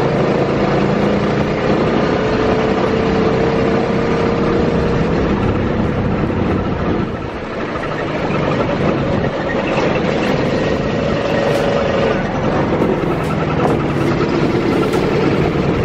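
Small open vehicle's engine droning steadily as it drives, under a rush of wind over the microphone.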